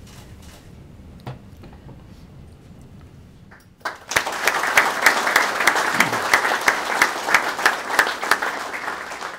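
Audience applauding, starting suddenly about four seconds in after a quiet stretch and tapering off near the end.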